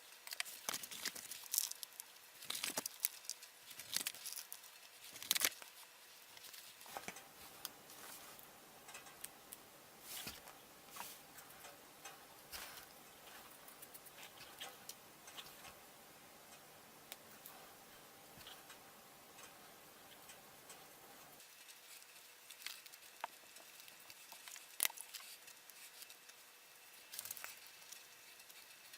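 Light, scattered taps and clicks of small tools and parts being handled during a hammer restoration, with a faint steady hum through the middle that cuts off suddenly about two-thirds of the way in.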